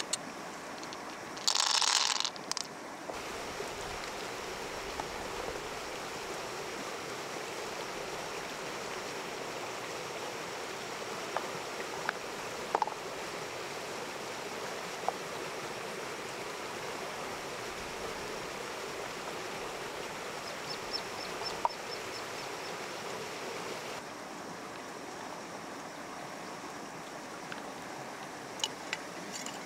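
Steady rushing of water, with a few light clicks and one short, loud burst of hiss about two seconds in.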